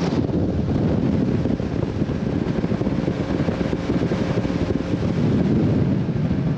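Bass boat underway: the outboard motor running steadily, mixed with wind rushing over the microphone and the hull moving through the water.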